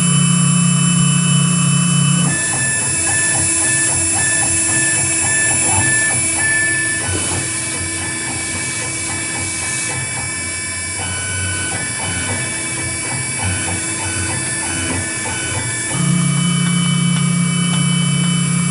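AKM6090 CNC router working foam: a steady high spindle whine with the stepper motors' held tones, which jump to new pitches as the machine changes feed and direction, notably about two seconds in and again near the end.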